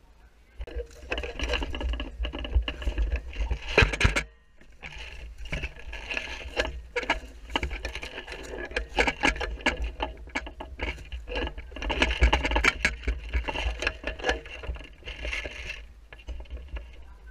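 Airsoft electric guns firing long full-auto bursts: a fast mechanical clatter of gearbox cycling and shots, with a short break about four seconds in.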